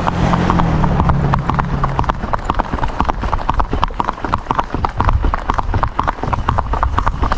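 A horse's hooves striking an asphalt road in a quick, even clip-clop under a rider.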